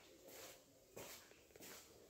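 Three faint footsteps on a tiled floor, about two-thirds of a second apart.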